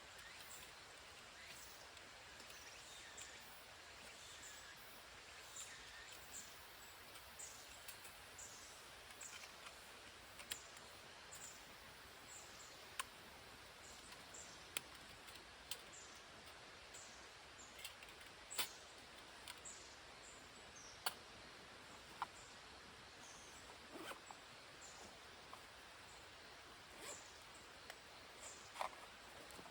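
Faint outdoor quiet with scattered short, high chirps that fall in pitch, like small birds calling. Every second or two there is a sharp click or tick.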